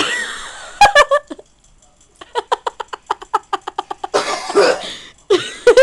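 A boy coughing and sputtering around a mouthful of extremely sour Warheads candies. A quick run of short laughs comes about two seconds in, and a breathy cough follows near the end.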